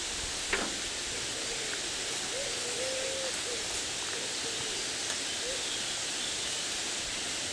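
Steady outdoor hiss of a rural garden, with one sharp knock about half a second in and a faint tone that wavers in pitch in the background around the middle.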